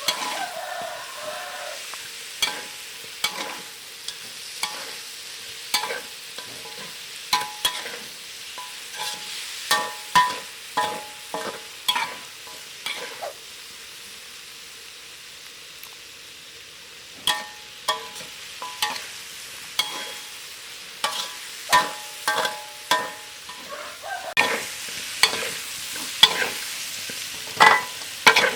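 Chicken and lemongrass sizzling in hot oil as they are stir-fried, with a spatula knocking and scraping against the pan in irregular runs of sharp, ringing clanks. For a few seconds near the middle only the steady sizzle is heard.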